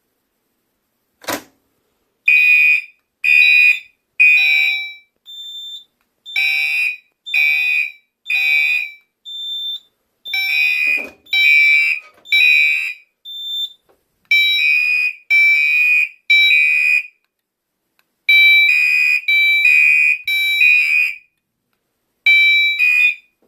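Gentex Commander 3 and Gentex SHG fire alarm horns sounding in code 3 (temporal-3): three short loud blasts, a pause, then three again, repeating, after a sharp click about a second in as the pull station is pulled. A short higher beep sounds in some of the pauses.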